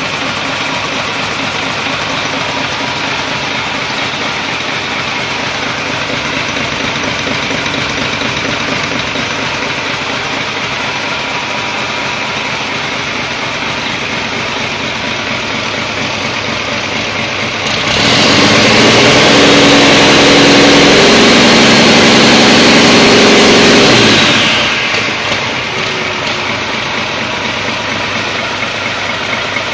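2005 Mack AI inline-six diesel engine idling steadily on a test stand during a test run. About 18 seconds in it is revved up, held at higher speed for about six seconds, then dropped back to idle.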